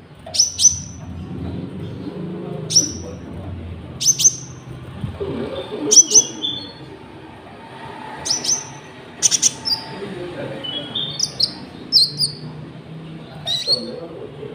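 Konin songbird calling: short, sharp, high chirps with a quick downward slide, singly or in quick pairs, repeated every second or two.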